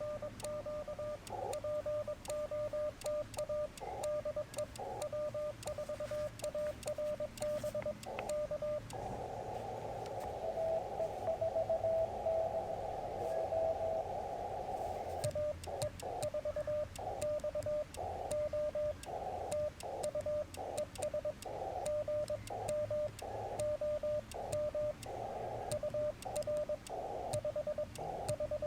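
Morse code (CW) sidetone from a Yaesu FT-891 transceiver: a single steady beep keyed in dits and dahs while a CQ call is sent with twin paddles, with light clicks from the paddles. About a third of the way in the sending stops for about six seconds and receiver audio comes up: band hiss through the narrow CW filter with another station's fainter, slightly higher-pitched Morse.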